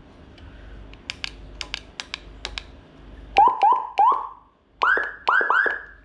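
Button clicks on a Whelen HHS2200-type siren control head. Then the 200-watt siren module sounds short bursts of tone: three quick chirps, followed by three quick loud rising whoops. These are tones being stepped through on the controller.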